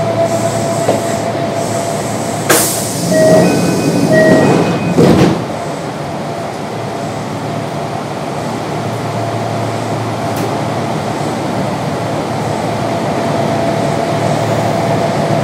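Running sound of a Kintetsu 3200 series electric train with Mitsubishi GTO-VVVF traction control, heard on board with a faint steady whine. A sharp clack comes about two and a half seconds in, then alternating ringing tones for about two seconds, then a thump. After that the running noise stays even and slowly grows louder.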